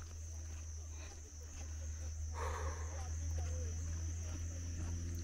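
Insects droning steadily at one high pitch over a low rumble, with a short rushing noise about two and a half seconds in.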